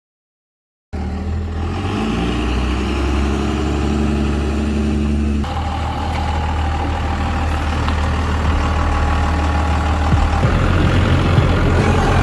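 Vehicle engine running steadily, starting about a second in, with an abrupt change in its sound about five seconds in and a rougher, more uneven run near the end.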